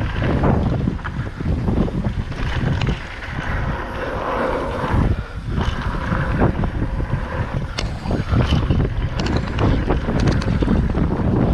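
Wind buffeting the microphone over the rumble of mountain bike tyres rolling fast on a dry dirt and gravel trail, with frequent clicks and knocks as the bike rattles over bumps.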